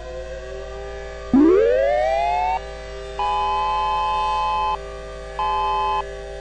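Tornado warning siren sounding. About a second in it winds up in a quick rising wail and holds, then cuts off and comes back as abrupt on-off blasts of one steady chord-like tone, two long and one short, over a steady background hum.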